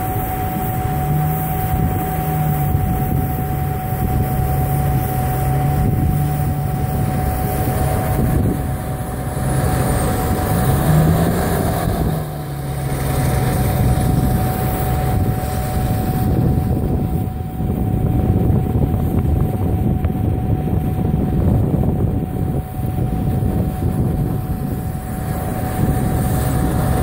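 Snow groomer's diesel engine working under load as it pushes snow with its front blade, revving up briefly about a second in and again around eleven seconds. Under it runs a steady high hum from a fan-type snow gun making snow.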